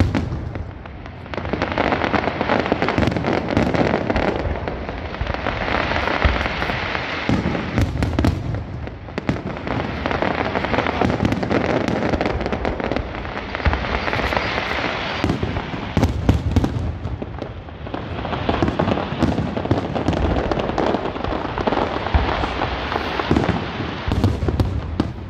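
Fireworks display: dense crackling from crackle-star shells, with sharp bangs, swelling and easing every few seconds.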